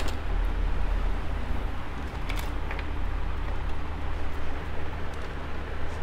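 Steady low background rumble, with a few light clicks about two and a half seconds in as the circuit board and its attached wires are handled.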